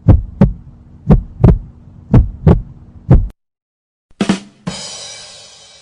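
Heartbeat sound effect: deep double thumps, lub-dub, about once a second, four beats, stopping a little after three seconds. About a second later a different effect starts: a short hit, then a hissing sound that slowly fades.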